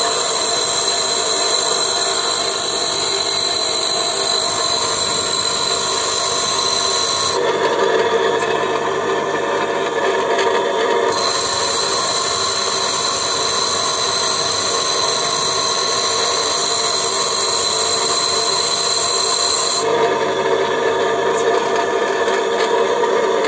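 Bench grinder running steadily while a high-speed steel tool bit is ground on its wheel to shape a 60° thread-cutting lathe tool. The hissing grind of steel on the wheel comes in two long spells, lifting off at about 7 s and again at about 20 s, when only the grinder's motor hum is left, and starts again near the end.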